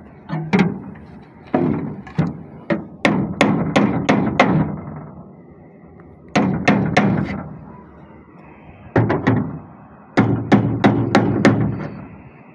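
Hammer blows at the transom of an aluminium Kazanka boat. They come in about six bursts of quick strikes separated by pauses of a second or two, and each strike rings briefly.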